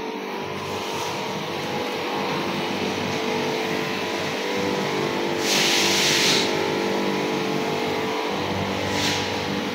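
Insecticide spray hissing from a backpack sprayer's nozzle, once for about a second some five and a half seconds in and again briefly near the end, over a steady machine hum.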